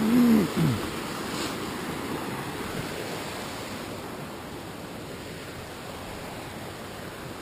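Rushing of a small cascading mountain stream, fading steadily as it is left behind. A brief hum of a man's voice sounds at the very start.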